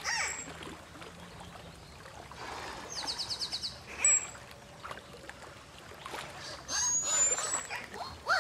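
Dolphin calls: a short buzzing pulse train about three seconds in, a brief sharp high whistle just after, and a rising whistle with squeaks near the end.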